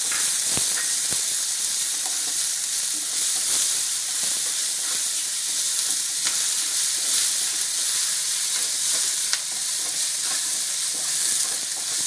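Chopped onion, ginger and garlic sizzling in hot coconut oil in a pan, a steady crackling hiss, with a few sharp clicks of stirring near the start.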